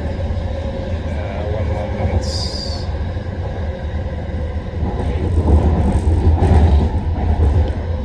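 Metro train running on its rails: a steady low rumble, with a brief high-pitched squeal a little over two seconds in and a louder stretch of rattling rumble past the middle.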